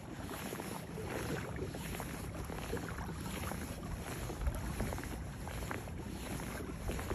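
Water splashing and lapping along the hull of a pedal-driven Hobie Outback kayak under way on choppy water, with wind rumbling on the microphone.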